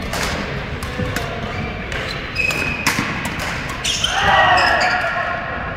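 Badminton rackets striking a shuttlecock in a rally, sharp echoing clicks, with shoes squeaking on the wooden court floor. About four seconds in comes a louder drawn-out squeal lasting about a second.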